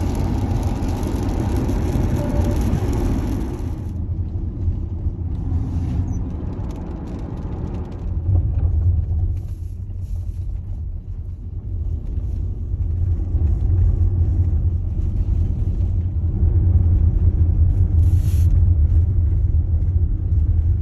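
Road noise inside a moving Tesla electric car's cabin. For about the first four seconds there is a loud tyre hiss on a wet highway. After that a steadier low rumble from the tyres on a dirt back road takes over.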